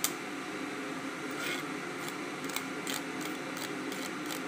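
Scattered light clicks and short scrapes of a metal hand grater and a kitchen knife against a plate and a hard mango as the mango is grated, over a steady low hum.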